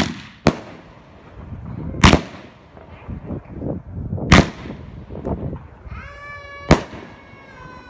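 Aerial shots from a Big Fireworks Enforcer 500-gram cake bursting high overhead: five sharp bangs, two close together at the start and then about every two seconds, with fainter crackles between.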